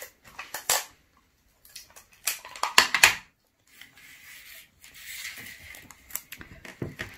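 Sellotape being pulled from a desktop tape dispenser and torn off: a few light clicks, then a quick run of sharp snaps about two to three seconds in, followed by a softer rasping hiss as the sticky strip is peeled and handled between the fingers.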